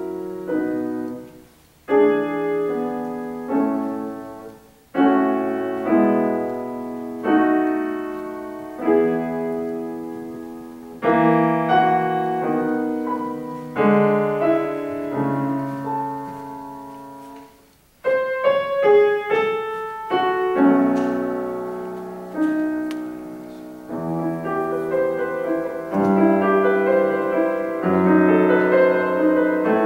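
Steinway grand piano played solo in a classical piece: chords struck and left to ring and fade, phrase after phrase. About two-thirds of the way through the sound almost stops, then faster runs follow and the playing grows denser and more continuous toward the end.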